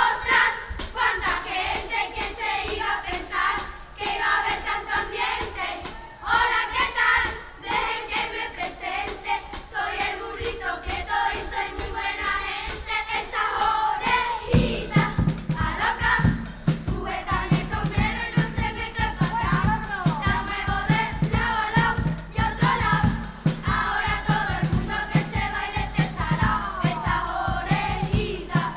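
Children's carnival chirigota chorus singing together in Spanish, accompanied by percussion; about halfway through a steady, heavier drum beat and bass come in under the voices.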